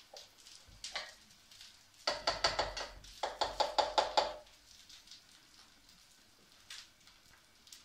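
Two quick runs of rapid knocking, each about a second long at roughly nine knocks a second: a glass chopper bowl or utensil being knocked against the kitchen sink, with a few single clicks before.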